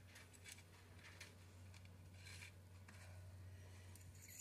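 Faint handling noise from fishing-reel parts and small tools being moved on a work tray: a few light clicks and a brief scrape, then a sharper click near the end, over a low steady hum.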